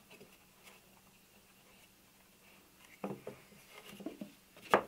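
Hands handling an MDF ukulele mold and its spreader hardware on a wooden bench. Quiet at first, then a few soft knocks and rubs about three seconds in, and one sharper knock near the end.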